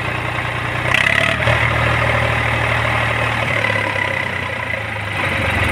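Eicher 485 tractor's diesel engine idling steadily.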